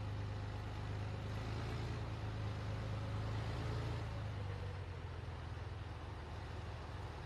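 Heavy multi-axle mobile missile launcher truck driving slowly past, its engine running with a steady low rumble.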